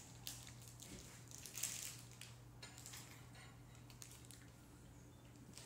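Near silence: room tone with a steady low hum and a few faint clicks and rustles.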